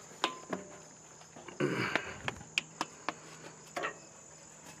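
Steady high-pitched insect trilling, with scattered sharp clicks and knocks and a brief rustle about two seconds in.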